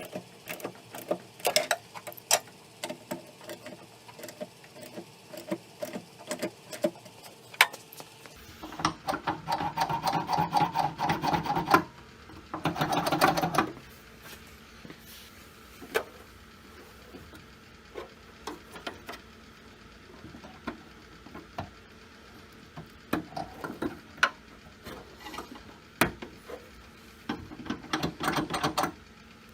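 Hand ratchet wrench clicking while tightening nuts: separate clicks at first, then quick rasping runs of ratcheting about a third of the way in, again just after and near the end, with scattered light knocks of tools on the door between.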